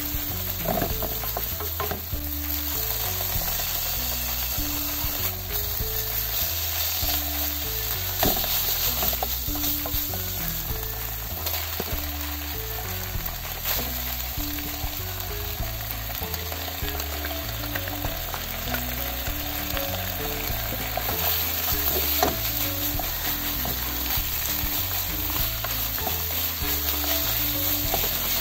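Ground pork, with thick fried tofu and sliced Japanese long green onion, sizzling steadily as it is stir-fried in a nonstick frying pan, a wooden spatula scraping and stirring with scattered clicks.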